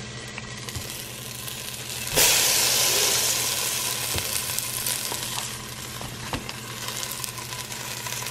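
Butter sizzling and crackling as it melts in a hot stainless steel pot. About two seconds in, a fresh spoonful goes in and the sizzle jumps suddenly louder, then slowly settles, with a few light clicks of the spoon against the pot.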